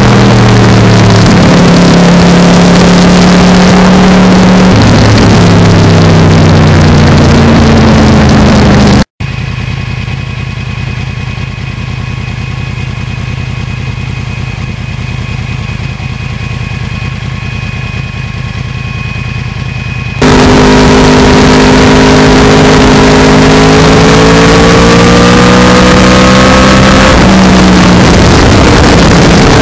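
2009 Yamaha R1 crossplane inline-four through a carbon slip-on muffler, recorded right beside the exhaust and very loud: engine pitch rising and falling with throttle and gear changes for the first nine seconds or so. It then cuts abruptly to a much quieter, steady engine note with the bike stopped at the roadside. After another abrupt cut it is riding again, with the pitch climbing steadily under acceleration.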